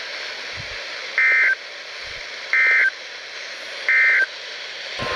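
Emergency Alert System End of Message data signal: three identical short bursts of warbling two-tone data, about a third of a second each and a little over a second apart, over a steady hiss. It marks the end of the severe thunderstorm warning message.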